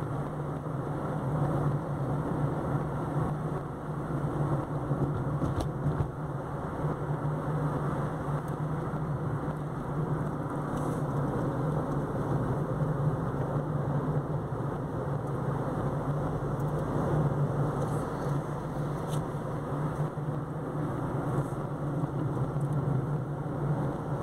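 A car driving along a winding road, heard from inside the cabin: steady engine and tyre noise with a low hum, with a few faint ticks.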